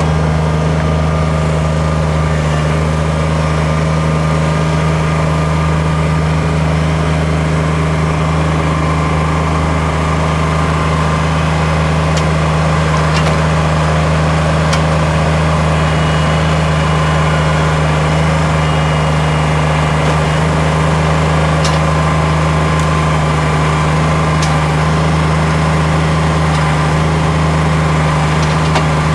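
Kubota tractor's diesel engine running steadily, with a few faint clicks over it.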